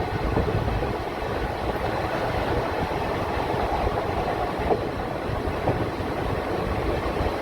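A train running steadily along the track, its wheels giving a continuous low rumble with a couple of faint clicks from rail joints about five and six seconds in.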